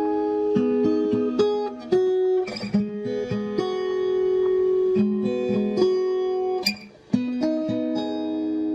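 Background music: a plucked guitar playing a tune of single notes and chords, with a brief break just before seven seconds in.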